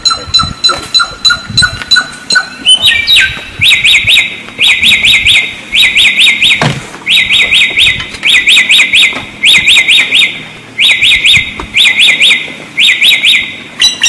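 A wild samyong songbird singing: for about three seconds a series of evenly spaced short notes, then a quick chattering phrase of rapid notes repeated about once a second.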